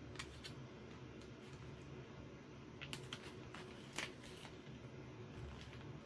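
Faint handling sounds of a plastic petri dish and scalpel worked over a plastic grow bag: a few light clicks and ticks, the sharpest about four seconds in, with soft plastic rustling over a low steady hum.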